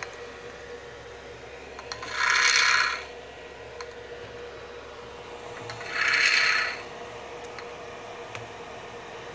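A loudspeaker on a crossover test rig plays two bursts of high hiss, each about a second long and roughly four seconds apart, as the crossover is driven toward overload. A faint steady hum runs between the bursts.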